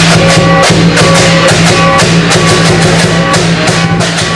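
Loud music with fast, dense drum and cymbal strikes over steady held pitches.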